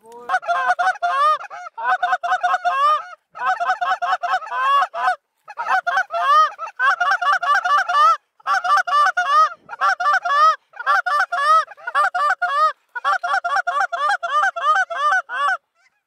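Canada goose honks and clucks come in quick runs of several calls a second, broken by short gaps, and stop suddenly near the end.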